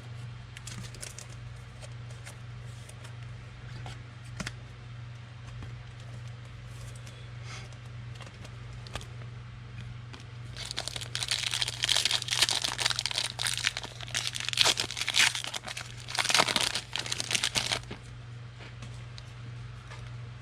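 Foil trading-card pack being torn open and crinkled: a few light clicks, then about seven seconds of dense crinkling and tearing from around halfway through. A steady low hum runs underneath.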